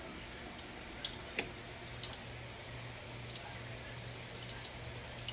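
Breaded chicken frying in oil in an electric deep fryer at about 325°F: a gentle bubbling hiss with scattered small crackles and pops, two sharper pops a little over a second in. It's not roaring, just bubbling, the sign of oil kept moderately hot so the crust browns slowly.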